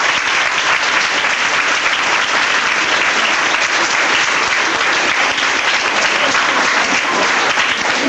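A large audience of schoolchildren applauding: steady, dense clapping.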